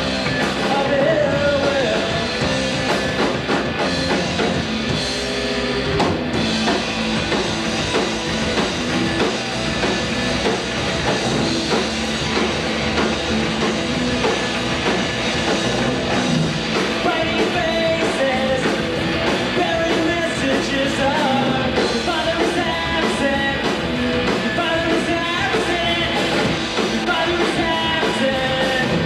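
Rock band playing live: electric guitars, bass guitar and drum kit, with a male lead vocal.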